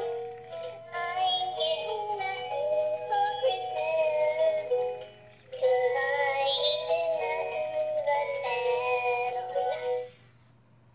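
Animated plush Christmas puppy toy singing a song with music. It breaks off briefly about five seconds in, picks up again, and stops suddenly near the end.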